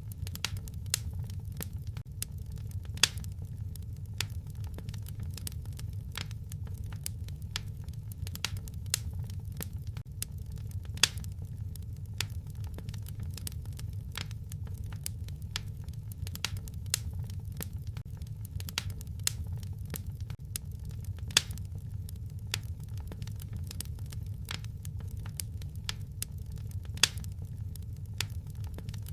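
Wood fire crackling in a fireplace: constant small crackles and a few louder sharp pops over a steady low rumble.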